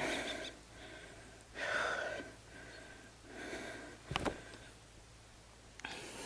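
A person breathing hard near the microphone: three loud breaths about a second and a half apart, with a sharp click about four seconds in.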